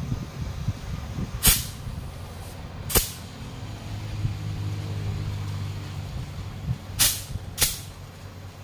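Short, sharp bursts of compressed air from a tyre inflator gun with a pressure gauge on a car wheel's valve, four in all: two in the first half, two close together near the end. A low steady hum runs through the middle.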